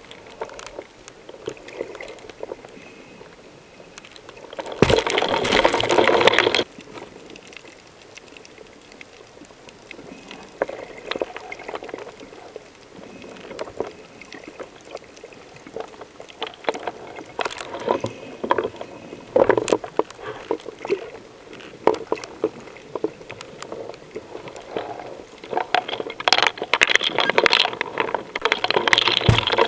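Underwater sound picked up by the camera: a rush of air bubbles lasting nearly two seconds about five seconds in, and more bubbling near the end, over a scattered crackle of small clicks.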